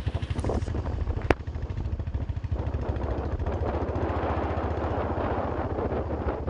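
Royal Enfield Bullet's single-cylinder engine running on the move, with a steady low thudding beat, and wind and road noise rushing over the microphone that grows after a couple of seconds. A sharp click sounds about a second in.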